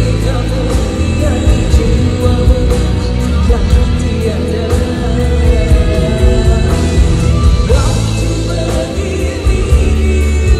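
A female vocalist sings a Malay pop ballad live into a microphone, backed by a full band with bass and drums.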